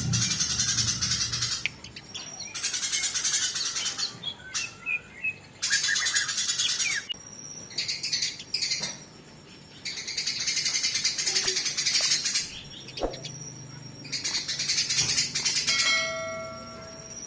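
Fighting Eurasian tree sparrows chattering harshly in bursts of one to three seconds, with short gaps between. Near the end comes a brief steady tone with several overtones.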